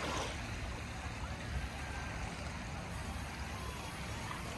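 Choppy lake water splashing and lapping against the shore, with a steady low wind rumble on the microphone.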